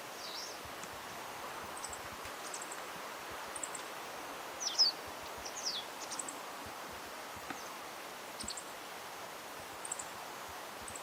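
Meadow bunting, a female, giving its contact call: a few short, high call notes that drop in pitch. One comes near the start, and two stronger ones come about five and six seconds in. A steady outdoor hiss lies under them.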